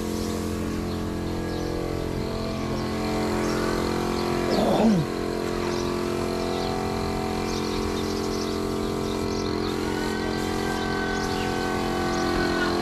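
A machine running steadily with a droning hum. About five seconds in, a short pitched sound glides up and then down, and small high chirps are scattered throughout.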